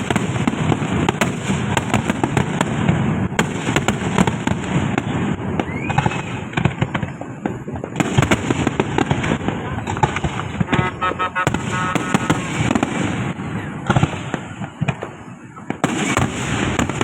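Many fireworks and firecrackers going off at once: a dense, continuous crackle of bangs and pops that eases off briefly near the end before picking up again.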